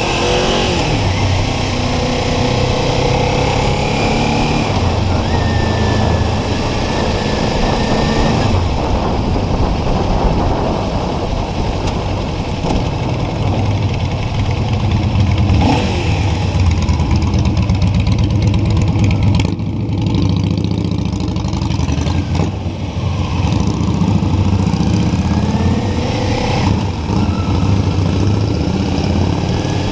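Motorcycle engine running under way, its pitch climbing and then dropping back several times as it accelerates and shifts, over a steady rush of wind noise.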